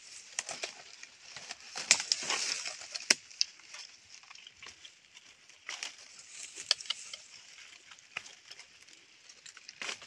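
Dry forest-floor leaves and twigs rustling and crackling as they are disturbed, in irregular crunches with a few sharp snaps, loudest about two to three seconds in.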